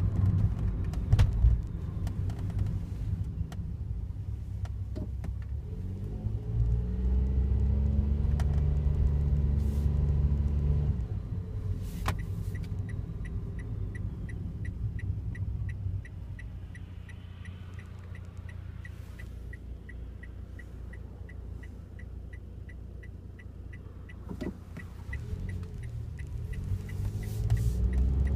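Daihatsu Wake running with a low engine rumble. The engine pulls harder about seven seconds in, then eases off. From about twelve seconds in, a regular light ticking of roughly three ticks a second comes in and keeps on. This is the kind of unexplained abnormal noise the owner has been hearing every morning since delivery.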